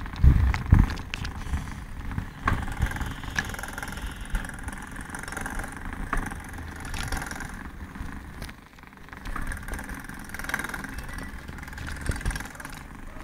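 Street traffic: a motor vehicle's engine running.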